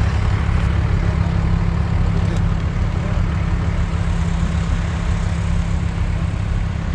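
Motor vehicle engine running steadily, a low rumble with a constant hum.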